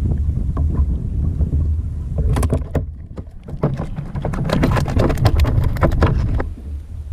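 Wind rumbling on the microphone aboard a fishing kayak, with a quick run of sharp clicks and knocks from about two to six seconds in.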